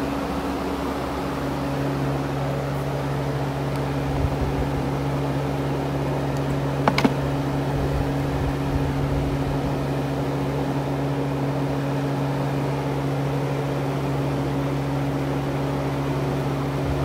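A steady low machine hum with an even whirring hiss, like a running fan or air-handling unit, and one sharp click about seven seconds in.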